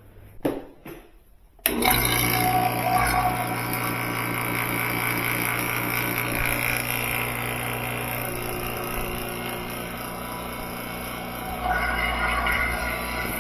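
An electric HVAC vacuum pump switches on suddenly about two seconds in and runs steadily, pulling a vacuum on a refrigerator's sealed system. A brief knock comes just before it starts.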